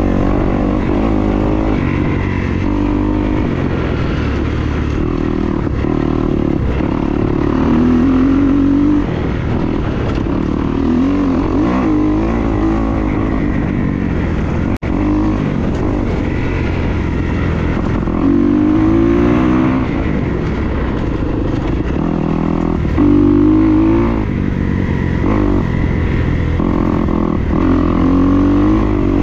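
Dirt bike engine running hard on a trail ride, its pitch climbing and falling again and again as the rider works the throttle and gears. A momentary break in the sound about halfway through.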